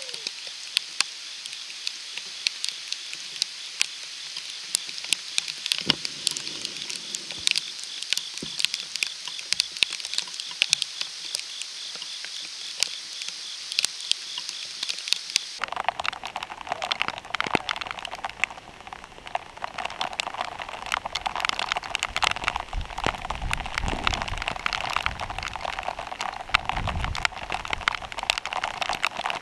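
Rain falling, with raindrops ticking sharply on the camera. About halfway through it changes abruptly to heavier, denser rain pattering on the wet camera housing, with some low rumbling near the end.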